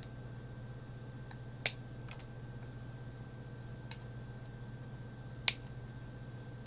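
Flush cutters snipping the leads of LEDs on a circuit board: sharp clicks, two loud ones, about a second and a half in and near the end, with a couple of softer ones between, over a steady low hum.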